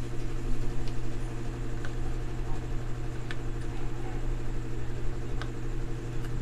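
Steady low hum with a few faint clicks and ticks, about one every second or two, as a soldering iron works a capacitor's leads on the underside of a circuit board.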